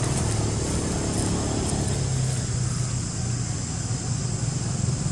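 A motor engine running steadily: a low, even hum.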